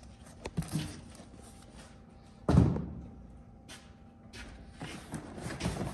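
A cardboard box and its packaging being handled: scattered rustles and light knocks, with one loud thud about two and a half seconds in.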